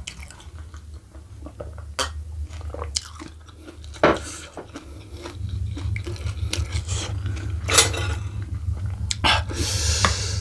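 Close-miked eating sounds: a sip from a glass, chewing, and fingers and a spoon pulling at a sambal-covered oxtail, with a few sharp clicks and knocks of tableware and a scraping stretch near the end. A steady low hum lies underneath.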